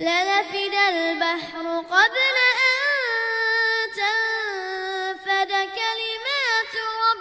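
A child's voice reciting the Quran in melodic tajweed style, with long held vowels ornamented by wavering turns of pitch that rise and fall.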